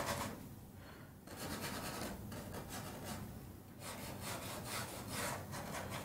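Paintbrush scrubbing oil paint onto a canvas in quick, repeated short strokes, with a couple of brief pauses.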